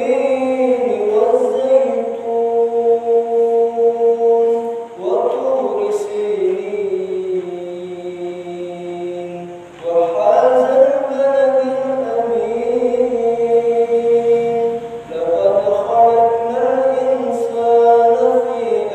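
A young imam reciting the Quran aloud in a melodious chanted voice during congregational prayer. Long held melodic phrases with short breaks for breath about every five seconds.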